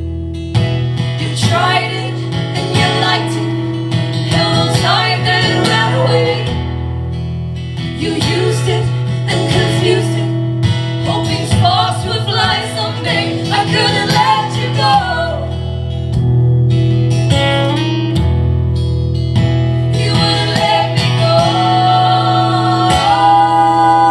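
Live acoustic guitar music, strummed chords with singing over them in phrases that come and go.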